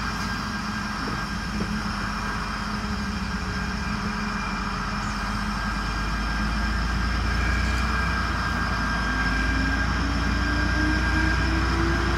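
Diesel locomotive engine running with a steady deep rumble, and a whine rising in pitch over the last few seconds.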